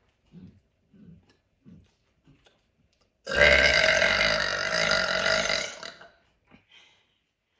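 A woman lets out one long, loud burp about three seconds in. It lasts about two and a half seconds and trails off at the end, with a few faint short sounds before it.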